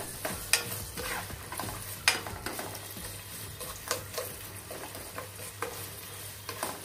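Chopped onions and dry red chillies sizzling in hot oil and ghee, being fried until transparent, while a spatula stirs them and knocks and scrapes against the pot every second or so.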